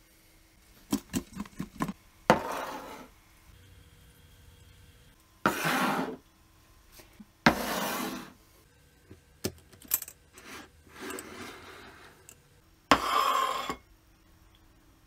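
Kitchenware being handled on a stone countertop: a quick run of light clicks, then several short scraping rubs as a steel pot, a glass jar and a plate are moved and set down.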